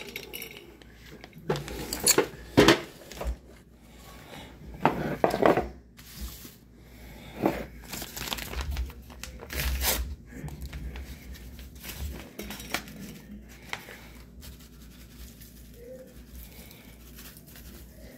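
A paper seasoning packet crinkling and tearing as it is handled and torn open: irregular sharp rustles and clicks, busiest in the first ten seconds, then quieter crinkling.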